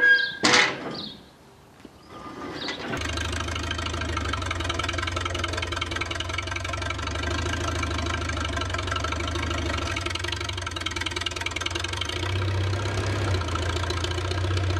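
A brief loud sound in the first second, then the Farmall Super A tractor's four-cylinder engine starts about two to three seconds in and runs steadily.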